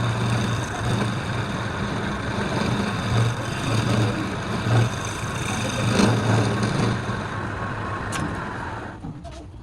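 A workshop machine's motor running steadily with a low hum and a rushing noise, then cutting off about nine seconds in.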